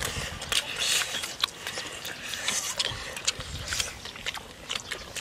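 Children eating: lip smacks and small clicks of chewing and handling food, with short puffs of breath.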